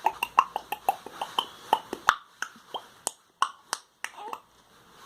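A rapid series of short, sharp clicks, about five a second at first, then slowing and spacing out until they stop about four seconds in.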